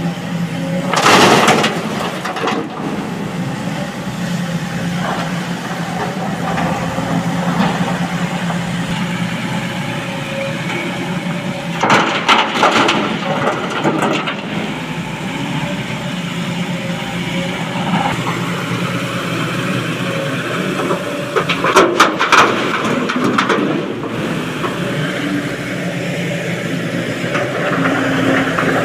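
Heavy diesel engine of a Sany crawler excavator running steadily under load, with three loud clattering crashes of broken rock dumped from the bucket into a steel dump-truck bed: one about a second in, one near the middle and one about three quarters of the way through.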